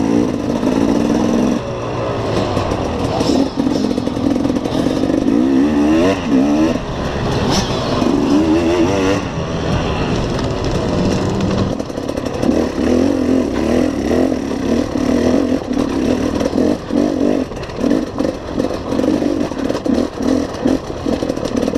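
KTM enduro motorcycle engine revving up and down as the bike is ridden off-road, heard from a camera mounted on the bike, its pitch rising and falling with the throttle.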